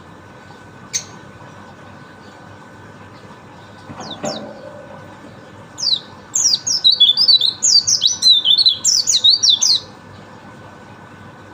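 White-eye (pleci) singing: a fast, dense run of high, sharp, mostly falling notes lasting about four seconds, beginning about six seconds in. Before it come a single sharp click about a second in and a short scratchy sound around four seconds, over a steady faint hum.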